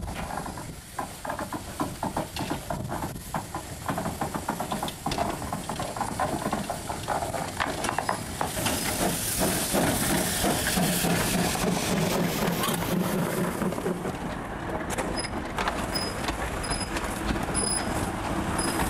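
Narrow-gauge 0-4-0 tank steam locomotive (1908 Orenstein & Koppel No. 16 Cementa) working slowly past: irregular knocks and clanks, then a loud hiss of steam venting at the cylinders about nine seconds in. Near the end its carriages roll by with a run of short, evenly spaced high squeaks.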